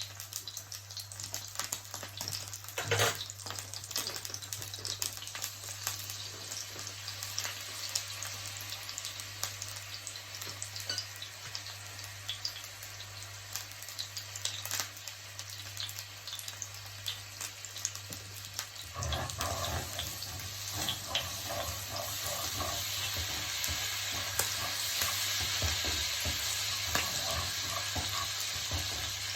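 Salmon frying in a pan with its sauce: a steady sizzle and crackle of oil. About two-thirds of the way in, the sizzle gets louder and busier.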